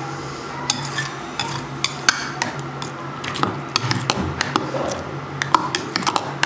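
Steel spoon scraping and clinking against the inside of a stainless-steel mixer-grinder jar while stirring thick ground tomato chutney, a string of sharp clicks.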